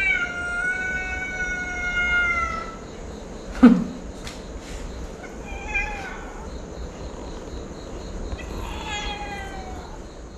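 A cat meowing three times. The first meow is long and drawn out, the second shorter, and the last falls in pitch. A brief sharp sound about three and a half seconds in is the loudest moment.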